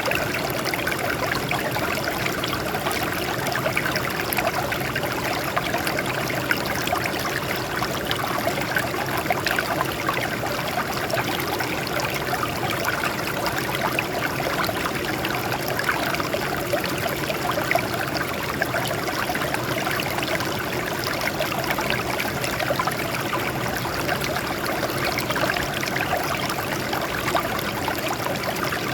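Water flowing and splashing over rocks in a steady, unbroken stream.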